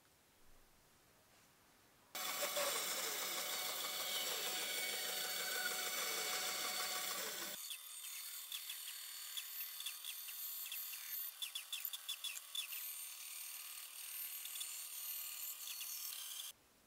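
Band saw cutting a wooden board, starting about two seconds in. Partway through, the sound changes abruptly to a quieter run with a steady hum and a patch of light ticks, then stops suddenly shortly before the end.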